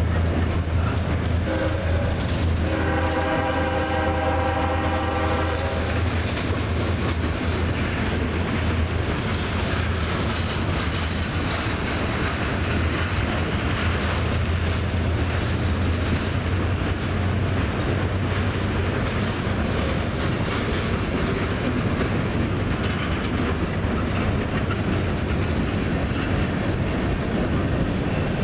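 Freight train cars rolling past: a steady low rumble with the clatter of wheels on rail. A train horn blows for about three seconds a couple of seconds in.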